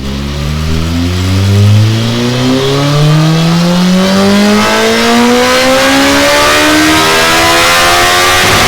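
Kawasaki ZZR1400 inline-four engine breathing through Delkevic tri-oval stainless steel silencers, pulling hard on a dyno: a loud exhaust note that climbs steadily in pitch as the revs rise through the range, turning rougher near the end.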